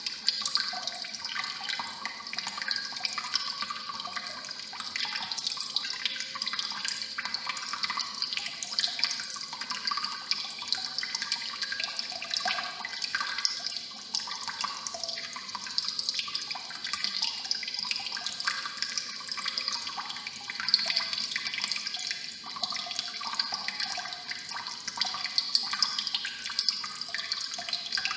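Kitchen faucet running steadily, water splashing into the sink with a reverberant echo.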